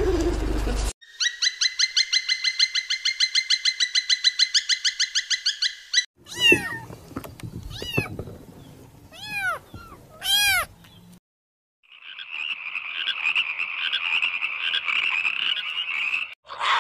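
A run of different animal calls. First comes a fast pulsed trill of about seven pulses a second, lasting about five seconds. Then about five short calls that rise and fall in pitch, and finally a steady raspy buzz of about four seconds that cuts off near the end.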